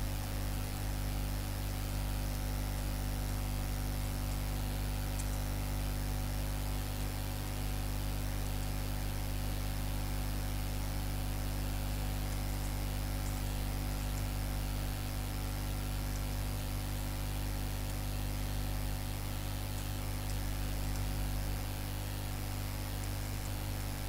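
Steady electrical hum with a constant hiss under it: mains hum and recording noise, with no other sound.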